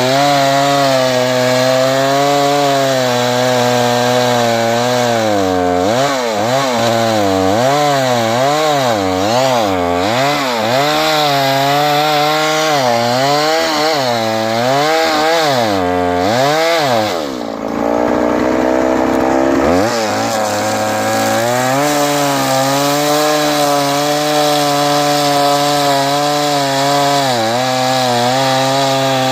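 Chainsaw engine running at high revs while cutting wood, its pitch swinging up and down about once a second as it bogs under load and picks up again. A little past halfway it breaks off briefly, then runs on at a steadier pitch.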